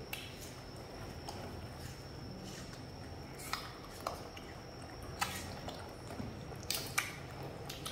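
Watermelon being eaten by the pets: soft wet chewing and smacking, with a handful of short sharp clicks spread through.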